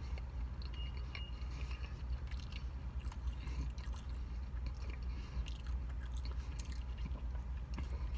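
A person chewing a soft slider burger, with faint wet mouth clicks and smacks, over a steady low hum inside a car.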